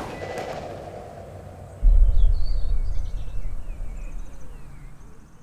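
Small birds chirping outdoors. Under them, a deep low rumble comes in suddenly about two seconds in and slowly fades away.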